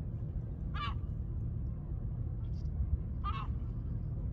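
A gull calls twice with short harsh cries, about a second in and again past three seconds, over a steady low rumble.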